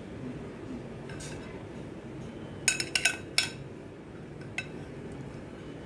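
Metal spoon clinking against a china bowl: a faint tap, then a quick cluster of four or five ringing clinks about three seconds in, and a single clink near the end.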